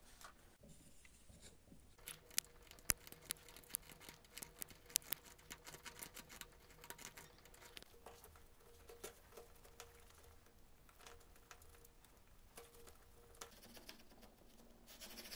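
Small hand chisel cutting and paring a thin strip of wood: a run of sharp clicks and light scraping as chips come away, the sharpest clicks in the first half and lighter scraping later on.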